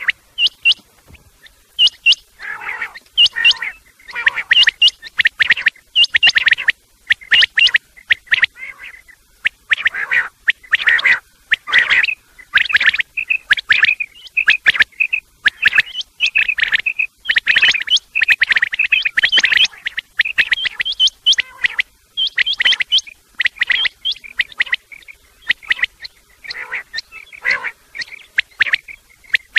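Quail calling, male and female calls mixed: dense, rapid, high chirping notes repeating without pause. It is a loud quail call meant to lure quail in close for hunting.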